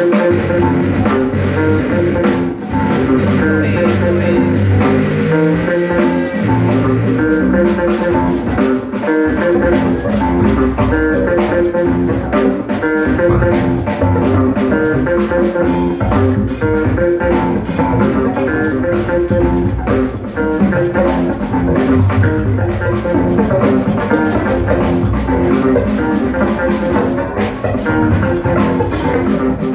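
Live jazz band playing: a hollow-body electric guitar plays over a drum kit and a steady bass line, heard as one continuous loud stretch of music.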